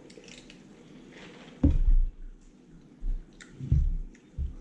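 Chewing and food handling close to the microphone, with a few dull low thumps, the loudest about a second and a half in.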